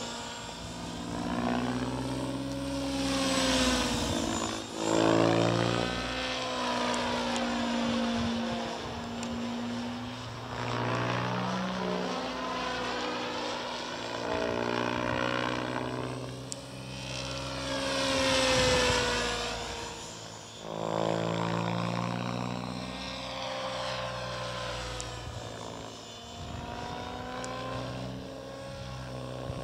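Raptor E 700 electric RC helicopter in flight: the whine of its brushless motor, drivetrain and main rotor blades, rising and falling in pitch and loudness several times as it swoops back and forth.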